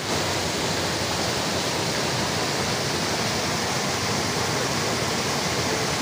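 Muddy, fast-flowing stream pouring over a rock lip just below a waterfall, heard close up as a steady, loud rush of water.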